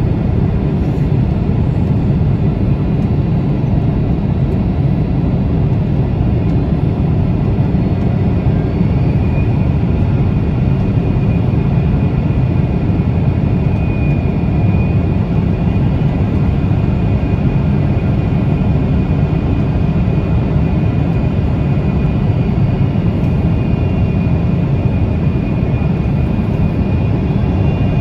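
Jet airliner in flight: a steady low rumble of engines and rushing air, with a faint high whine, holding constant throughout.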